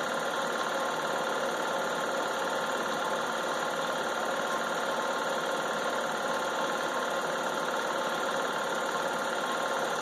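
Film projector running: a steady mechanical whirr with a constant pitched hum.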